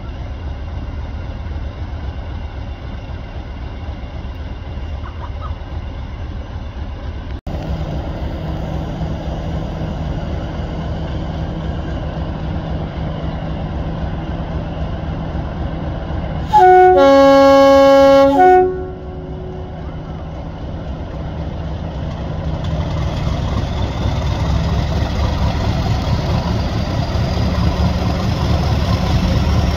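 English Electric diesel locomotive running at idle, then a loud two-tone horn blast of about two seconds, stepping high, low, then high again. Afterwards the engine note builds steadily as power is applied and the train starts to pull away.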